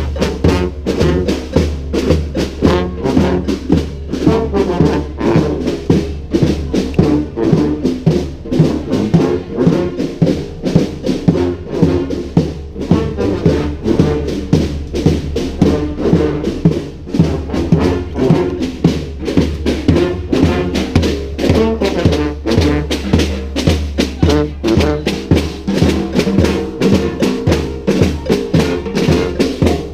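Brass street band with drums playing a cumbia tune, horns over a steady drum beat.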